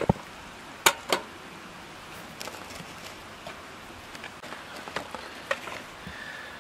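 Kitchen knife cutting through a lime on a wooden cutting board: a few sharp knocks of the blade on the board, the loudest two close together about a second in and fainter ones later, over a steady low hiss.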